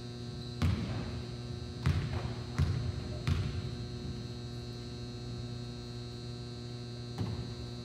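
A basketball bouncing on a hardwood gym floor, four sharp bounces in the first few seconds as a free-throw shooter dribbles before his shot, with a softer knock near the end. A steady electrical hum runs underneath.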